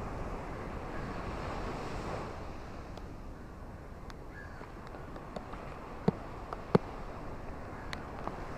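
Ocean surf and rain making a steady wash, with a wave swelling through the first couple of seconds. Scattered sharp ticks run through it, two louder taps about six and seven seconds in.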